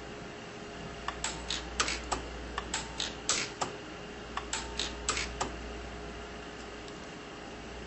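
Sunstone Orion 150s pulse arc welder firing a quick, irregular string of sharp snapping pulses, about fifteen in four and a half seconds, as silver fill wire is welded onto a titanium eyeglass frame; the pulses stop a little past halfway, leaving a steady low hum.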